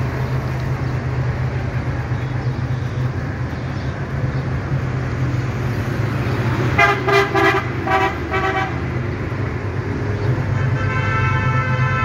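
Diesel locomotive's air horn sounding a quick series of about five short toots some seven seconds in, then a long held blast near the end, over a steady low engine rumble as the train approaches.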